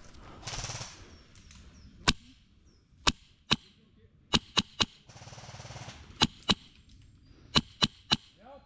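Airsoft replica firing single shots, about eleven sharp cracks at an uneven pace, some in quick pairs and threes.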